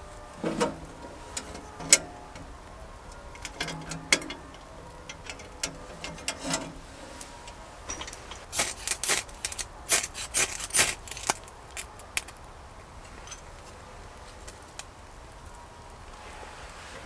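Objects being handled: scattered knocks and short clinks, some with a brief low ring, and a quick run of clicks and rattles about nine to eleven seconds in.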